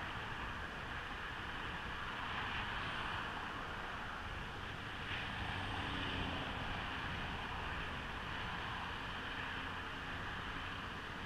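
Evolve Bamboo GTX electric skateboard riding along asphalt: a steady rolling hiss from the wheels on the road, mixed with wind noise on the microphone.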